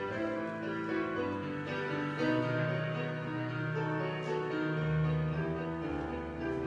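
Slow instrumental keyboard music: held chords under a melody line, with a deeper bass note coming in about five seconds in.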